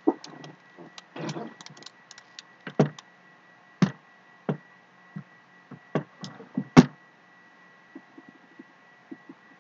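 A small decorated box being handled and opened: irregular knocks and clicks of its lid and sides, with a short scrape about a second in and the loudest knock near the middle.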